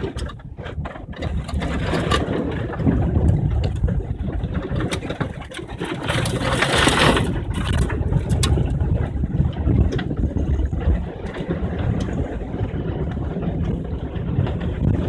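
A car driving through shallow, muddy flowing water, heard from inside the cabin: a steady engine and tyre rumble with water sloshing under the car and scattered knocks against the body. A louder rush of splashing comes about six to seven seconds in.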